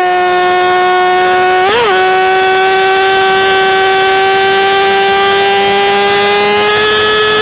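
Motorcycle engine held at high revs, a loud steady high-pitched note that wavers briefly about two seconds in.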